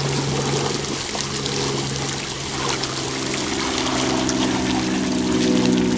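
Fountain jets spraying and splashing steadily into a shallow pool, with a steady low hum underneath.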